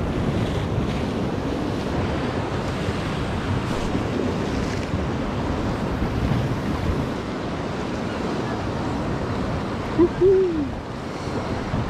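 Choppy sea surf washing against rocks, with wind buffeting the microphone. About ten seconds in, a short hooting call rises and falls.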